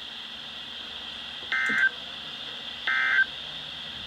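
Emergency Alert System end-of-message data bursts from NOAA Weather Radio: two short, raspy digital tone bursts about a second and a half apart over a steady radio hiss, marking the end of the alert.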